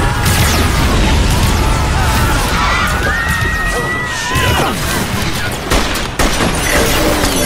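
Police handgun fire, many shots in quick succession, in a dense action-film sound mix.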